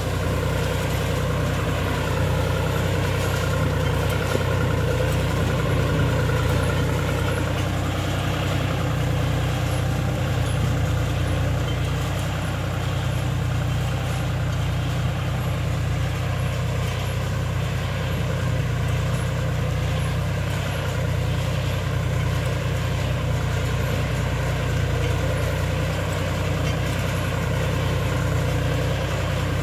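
John Deere 5105 tractor's three-cylinder diesel engine running steadily under load while pulling a mouldboard plough.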